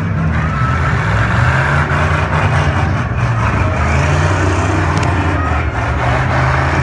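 Several demolition derby cars' engines running and revving loudly together, with scattered knocks of metal hitting.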